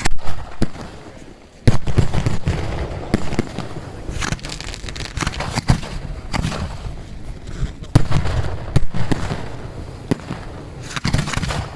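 Fireworks going off: a run of sharp booms with rumbling tails and crackling between them. The loudest booms come at the very start, about a second and a half in, twice around eight seconds in, and again shortly before the end.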